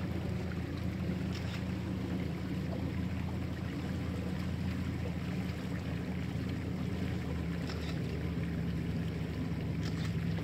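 A boat's motor running steadily, a constant low hum.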